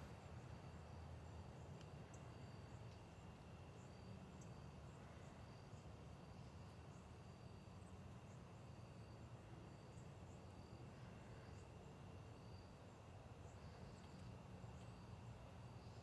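Near silence of an evening outdoors: faint insect chirps repeating at a steady rhythm, a little more than one a second, over a low steady rumble.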